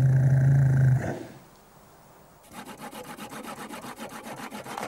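A low, steady animal call lasting about a second. After a short pause comes a hand saw cutting through reindeer antler in rapid, even back-and-forth strokes for about two seconds.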